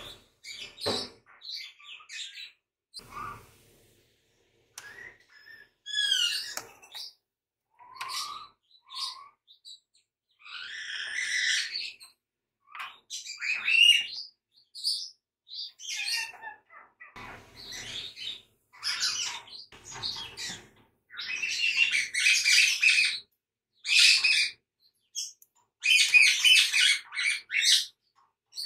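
Birds chirping and twittering in short, repeated calls, sparse at first and busier and louder in the second half.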